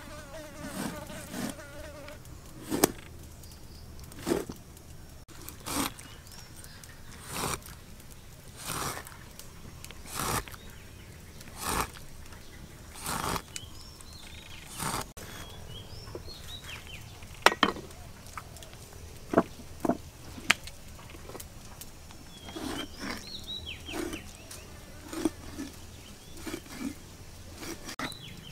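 A cleaver slicing scores into the skin of a large whole fish and knocking the wooden chopping board beneath, one cut about every second and a half, over a steady background buzz.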